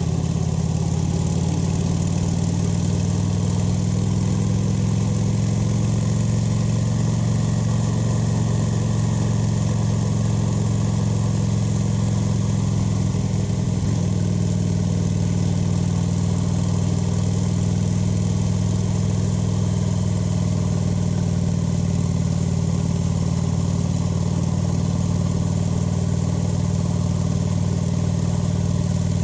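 Kawasaki Vulcan 900's V-twin engine and exhaust running steadily, holding nearly the same pitch throughout.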